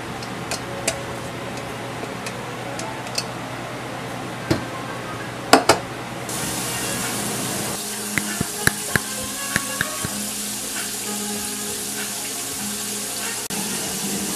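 A few sharp clicks and knocks of kitchen utensils, then a kitchen tap that starts suddenly about six seconds in, running into a stainless steel sink. Live mussels click against each other as they are rinsed under it.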